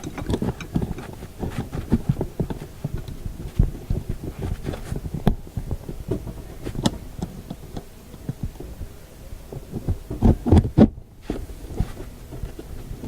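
Handling noise from hands working parts of a radio's dial glass and cabinet: irregular light knocks, taps and rubbing, with a cluster of louder knocks about ten seconds in.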